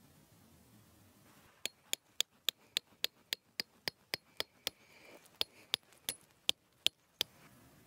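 Copper-faced peg hammer driving a metal tent stake: about eighteen quick, ringing metallic strikes, three to four a second, with a brief pause about two-thirds of the way through.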